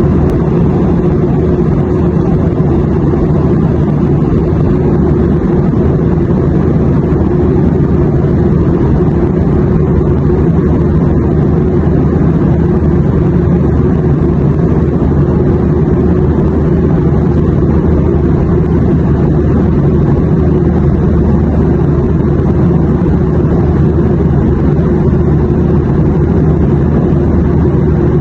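Steady, loud airliner cabin drone: a constant low rumble of engine and airflow noise, with a hum near the bottom and no changes in pitch or level.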